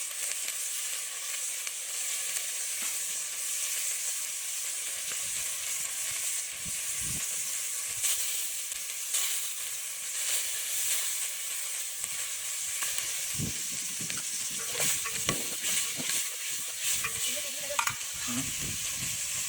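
Food frying in a pan with a steady sizzle, and occasional clicks and knocks of a utensil stirring it, more of them in the second half.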